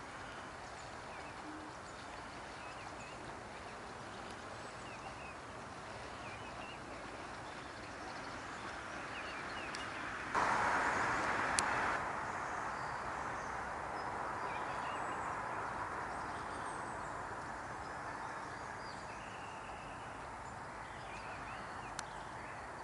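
Outdoor ambience: a steady background hiss with faint small birds chirping here and there. A louder stretch of the same noise lasts about a second and a half around the middle.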